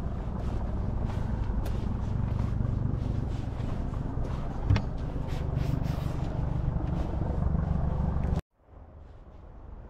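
An engine running steadily with a low rumble, with one sharp click about halfway through. The sound cuts off suddenly about eight seconds in, and a much fainter rumble comes back and slowly grows.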